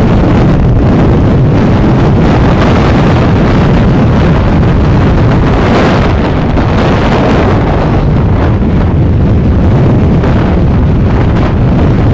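Sea waves washing on the shore, largely covered by loud wind rumbling on the microphone, with a brighter rush of surf about halfway through.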